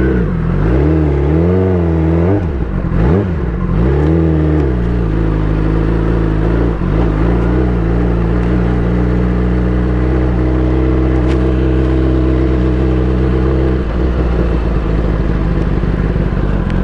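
Kawasaki ZX-10R's inline-four engine running through a loud exhaust. For the first few seconds the pitch rises and falls with the throttle, then it holds a steady note while cruising, changing slightly near the end.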